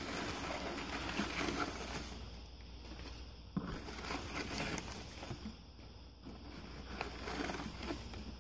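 Crumpled newspaper packing rustling and crinkling as a hand digs through it inside a shipping box, in about three spells with short, quieter pauses between.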